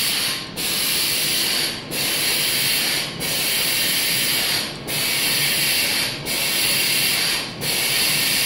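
Vacuum suction gripper of a Greefa SmartPackr avocado-packing robot hissing loudly as it picks avocados and sets them into a tray. The hiss of air breaks off briefly about every second and a half.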